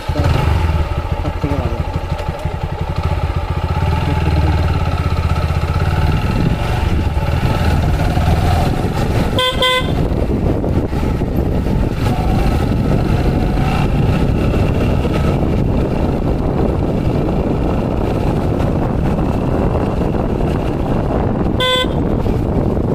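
Motorcycle running along a road with steady wind and traffic noise, a deep engine rumble at first giving way to a broader rush. A vehicle horn gives short honks twice, once about ten seconds in and again near the end.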